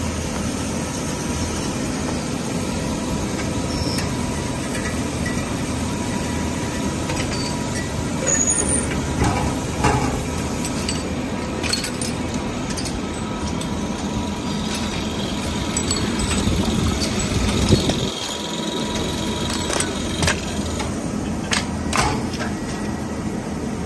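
Tannoban hydraulic lathe for bearing rings running, a steady machine hum with a thin steady whine. Sharp clicks and knocks from its loader and tooling come now and then, with a stretch of hissing air near the middle.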